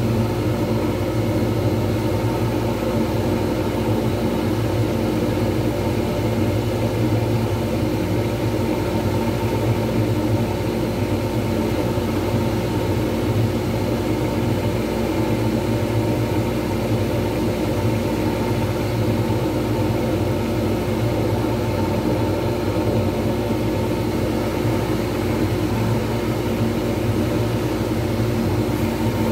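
Wood lathe running at a steady speed, a constant hum with several held tones, while a cloth is held against the spinning resin pen blank to finish it.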